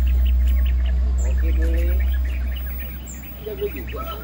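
Small birds chirping again and again over a steady low rumble, which fades out about two and a half seconds in.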